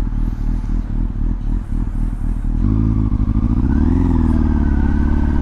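2005 Yamaha FZ1's inline-four engine idling, then picking up about two and a half seconds in as the bike pulls away, its revs rising.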